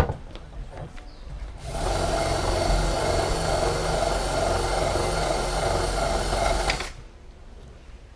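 Torpedo Duomatic rear wheel turning on its hub, giving a steady mechanical whirring with a low rumble for about five seconds. It starts and stops abruptly. A sharp click comes right at the start.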